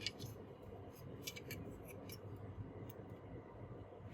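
Faint scattered light clicks and ticks of small laptop parts being handled and jiggled loose during disassembly.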